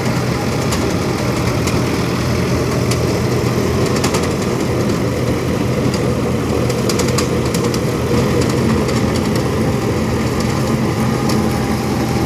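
Tractor diesel engine running steadily, working a belt-driven farm machine, with a steady low hum and a scattering of small clicks and rattles throughout.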